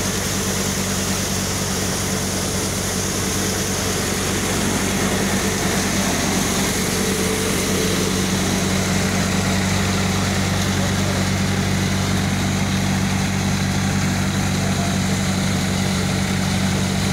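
Tractor-driven multi-crop thresher running at a steady speed: a constant low engine drone with an even mechanical noise over it.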